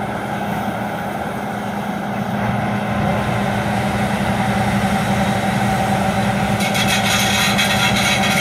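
Combine harvester running steadily; about two-thirds of the way through, a rapid, high-pitched squeaking starts up as the straw chopper spins down to a stop.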